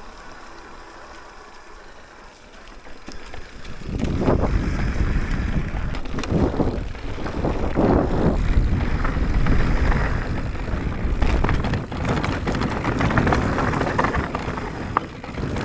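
YT Decoy MX mountain bike rolling quietly at first, then, about four seconds in, riding fast over rough trail: tyres on dirt and rock with knocks and rattles from the bike, and wind on the microphone.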